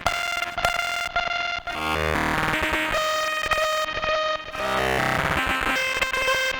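Synthesizer played through the Caustic FX Snowstorm white-noise distortion pedal: sustained pitched notes that change every second or so, heavily distorted with a gritty, noisy fuzz.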